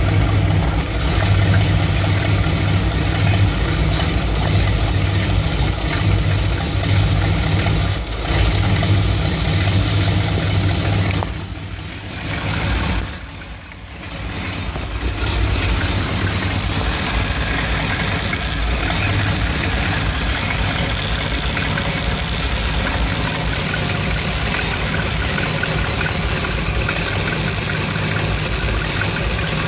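Mopar 360 small-block V8 with a two-barrel carburettor idling roughly and unevenly when warm, a rough idle that a new ignition coil has not cured. About twelve seconds in the sound drops away for a couple of seconds, then the engine runs on with more hiss.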